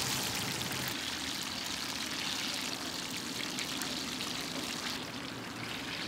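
Hot oil in a deep fryer sizzling steadily with many small crackles as battered pieces fry.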